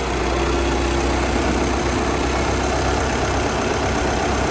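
Audi A6 2.0 TDI four-cylinder diesel engine idling steadily with its accessory belt removed. The extra noise is gone, which places its cause in a belt-driven part (the idler/tensioner bearings, alternator or AC compressor) rather than inside the engine.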